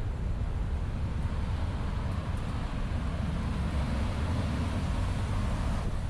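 Wind buffeting the microphone in a steady low rumble, over a hiss of outdoor noise that swells slightly partway through.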